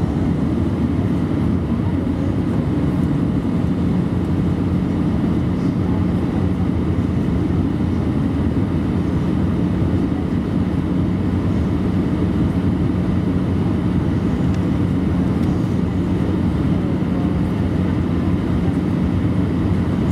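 Steady in-cabin drone of an Airbus A319-112 on approach with flaps extended: its CFM56 engines and the airflow over the wing, with a low hum running through it.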